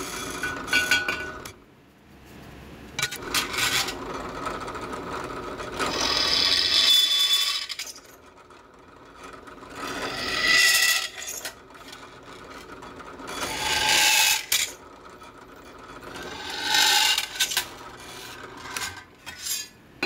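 Bench drill press boring holes in a thin steel plate: about six separate spells of drilling noise, a second or so each, with quieter gaps between. Small clinks come as the metal plate is handled.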